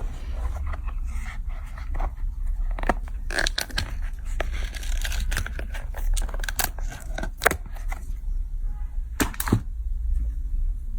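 Irregular clicks, taps and short rustles of small objects being handled, over a steady low hum.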